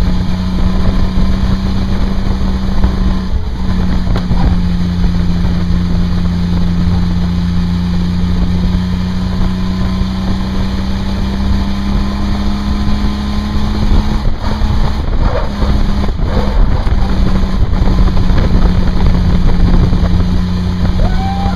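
Car engine droning at a steady pitch, heard from inside the car, with low rumble and wind buffeting the microphone; the drone breaks off briefly about three seconds in and a few more times in the second half.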